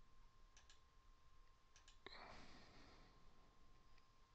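Faint computer mouse clicks, each a quick press-and-release pair, heard a few times over near silence, with a soft breath about two seconds in.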